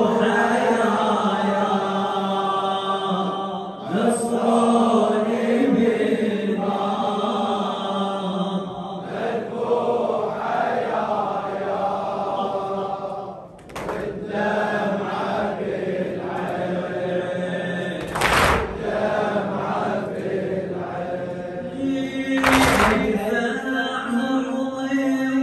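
A radood, a Shia lament reciter, chanting an Arabic latmiyya into a microphone in long, held lines, with the mourners chanting along. Twice in the second half a loud thump cuts across the chant, from the mourners beating their chests.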